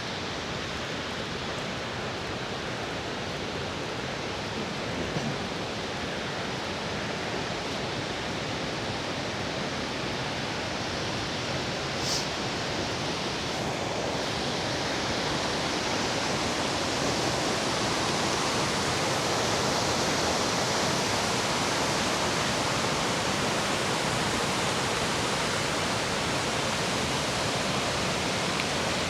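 Little River Falls rushing: a steady, even wash of falling water that grows a little louder about halfway through.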